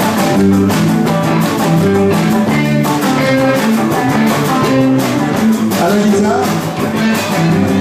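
Live rock and roll band playing electric guitars over a steady drum beat.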